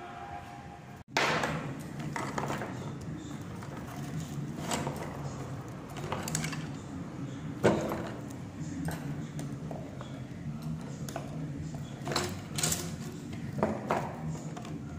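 Bangles clinking as they are stacked one by one on a bangle stand: a few sharp clinks spread out, the loudest about eight seconds in, over a low steady hum.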